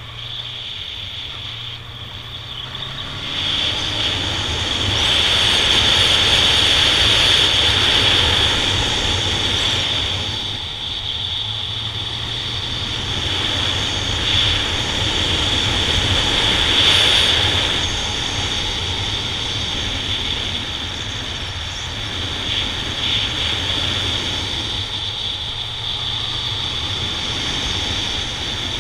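Honda Nighthawk 750's air-cooled inline-four engine running steadily under way, heard from on the bike, with rushing wind noise. The rush swells twice, a few seconds in and again around the middle.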